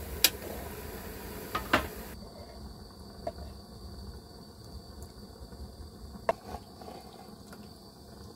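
Scattered sharp clicks and clinks of cookware and utensils being handled, over a faint steady hiss with a thin high whine.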